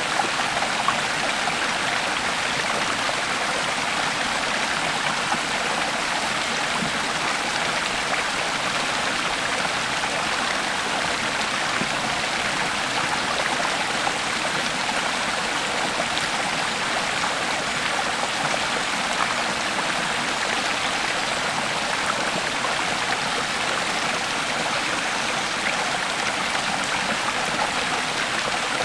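A creek flowing steadily, its water babbling and splashing in an even rush with small flickering splashes.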